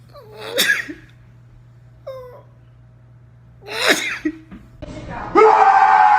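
Two sharp sneezes, the first about half a second in and the second about four seconds in, with a brief high rising squeak between them. Near the end a louder, drawn-out voice sound begins.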